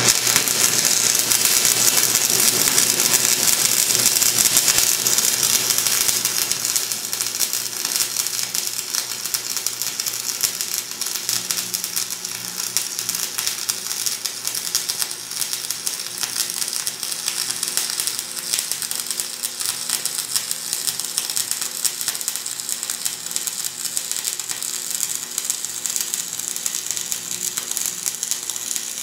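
Electric arc welding on steel: the arc crackles and spits steadily as a bead is laid. It is a little louder for the first several seconds.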